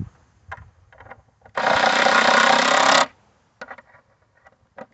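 Cordless impact driver set to a low speed setting, hammering in one burst of about a second and a half as it drives a pan-head screw into the plastic skimmer body. It is stopped once the gasket just squeezes out, so as not to crack the plastic. Light clicks and taps of handling come before and after it.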